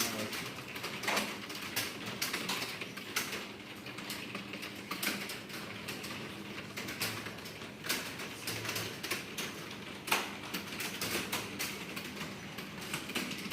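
Typing on a computer keyboard during a typing test: quick, irregular keystrokes, with a few louder key strikes scattered through.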